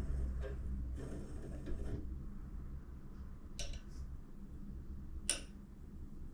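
Metal microphone bar being handled and fitted on its stand: a brief scrape about a second in, then two sharp metallic clicks, the second the loudest, over a steady low hum.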